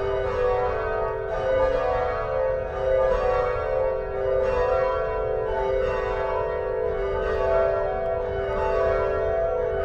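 The Swan Bells, a ring of tower bells, sounding in change ringing. The bells strike one after another about twice a second, and their tones ring on and overlap into a continuous peal.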